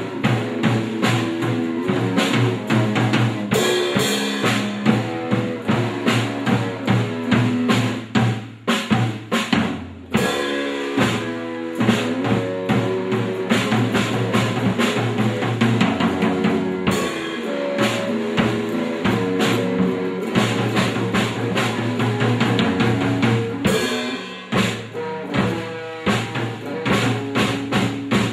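Instrumental band music: a drum kit keeps a steady beat with kick and snare under sustained pitched instruments, with a brief break in the drumming a little before the middle.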